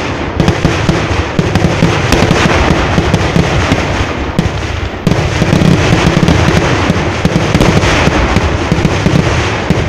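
Festival fireworks display firing a dense, unbroken barrage of firecracker bangs and crackling blasts, with a short dip about halfway through before the barrage picks up again.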